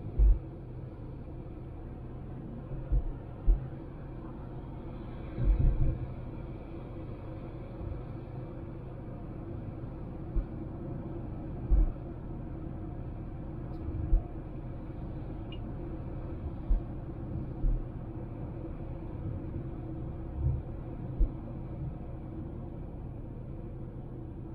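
Honda Civic driving on the road: a steady low rumble of road and engine noise, broken by about ten short, low thumps at irregular intervals.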